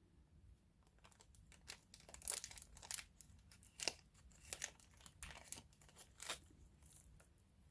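Faint, irregular crinkles and clicks from handling a small plastic bag holding a strand of crystal rondelle beads.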